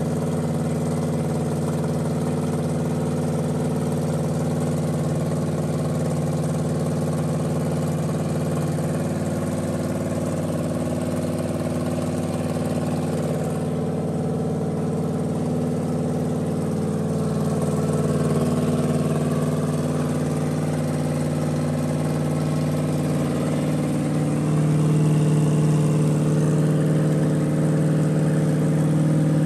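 Freshly rebuilt Pontiac 400 V8, bored to 406 cubic inches, running steadily on an engine run stand during its first start. It gets a little louder twice, about 18 and 25 seconds in.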